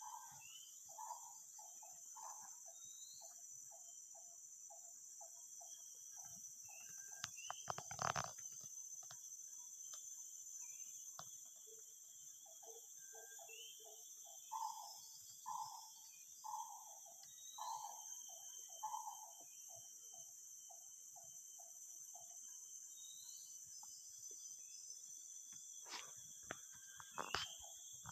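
An unidentified forest animal calling in two long series of repeated notes: each starts with a few longer, louder notes and runs on into a quick string of shorter, quieter ones. Insects drone steadily throughout, and a couple of sharp knocks come around the middle and near the end.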